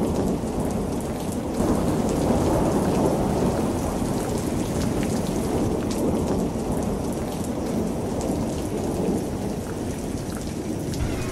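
Heavy rain falling steadily with scattered drop ticks, over a low, continuous rumble of thunder.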